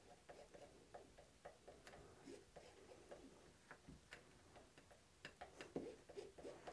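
Near silence with faint, irregular clicks and soft scrapes of a metal palette knife spreading thick acrylic paint across a palette, a little more often in the last second or so.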